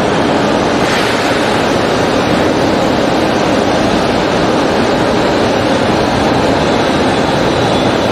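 Shinkansen 0 Series train running slowly into a station platform: a loud, steady rushing rumble of wheels on rail and running gear.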